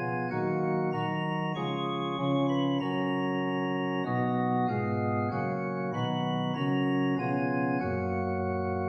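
Background music: an organ playing slow, held chords that change about once a second.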